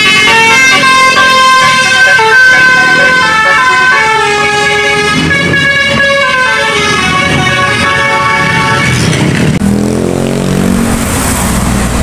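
Bus 'telolet' multi-tone air horn playing a tune of stepped notes for about nine seconds. After that, a passing engine takes over.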